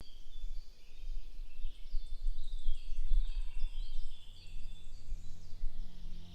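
Several birds singing and chirping over a low, uneven rumble. A steady low hum comes in about four seconds in.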